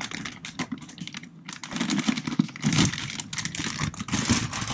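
Plastic bag crinkling and rustling as a new transmission mount is pulled out of it by hand, in a run of quick crackles with busier rustling about two seconds in and again near the end.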